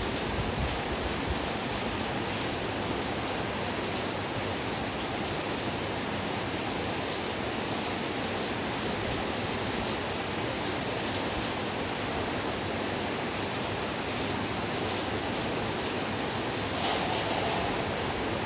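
Heavy rain falling steadily, an even, unbroken hiss and patter with a brief slight swell near the end.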